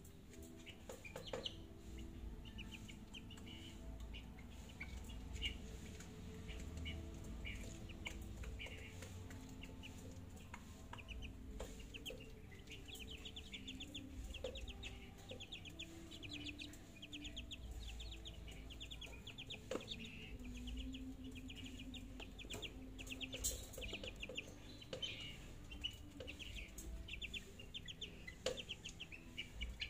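Month-old chicks peeping in quick runs of short, high chirps, with occasional sharp clicks.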